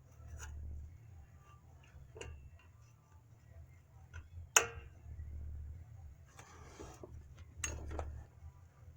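Scattered light clicks and clinks of hands working on a drum brake's shoes and hardware, with one sharp click about halfway through and another near the end, over a steady low hum.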